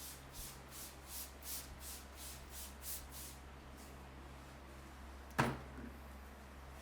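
Hands rubbing briskly during a head massage, in quick strokes about three a second for the first three seconds or so. A single sharp click follows about five seconds in.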